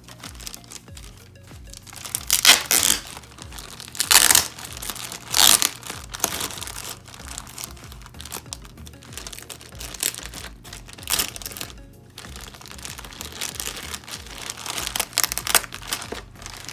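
Paper wrapping being crinkled and torn in irregular bursts as a packaged item is unwrapped by hand, loudest around two, four and five seconds in. Background music plays underneath.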